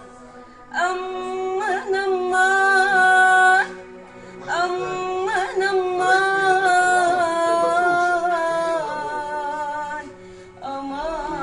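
A woman singing a slow Arabic melody solo, in three phrases of long held notes with curling ornaments, pausing briefly for breath between them.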